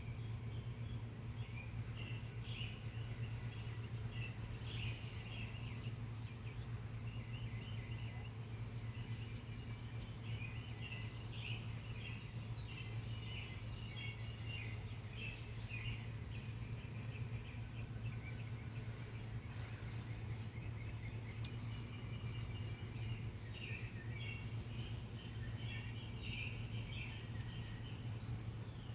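Many short chirping animal calls, clustered and overlapping throughout, over a steady low hum.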